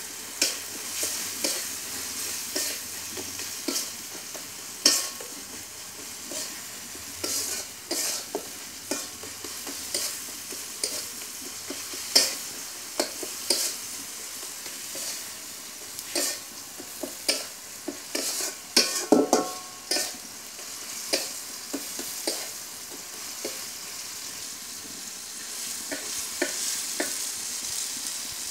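Metal spatula stirring and scraping tomatoes, onions and spices frying in oil in a metal wok: irregular scrapes and clicks, about one or two a second, over a steady sizzle. The scrapes come thickest about two-thirds of the way through.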